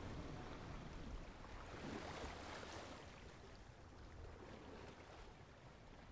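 Faint wash of ocean surf breaking on the beach, slowly fading out.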